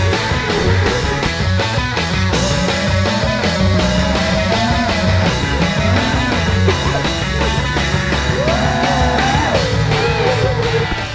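Rock music with a steady drum beat and a sliding melody line.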